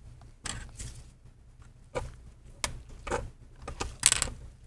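Light clicks and knocks from hands handling a laptop's plastic chassis and hinge during disassembly, a few scattered taps with the loudest about four seconds in.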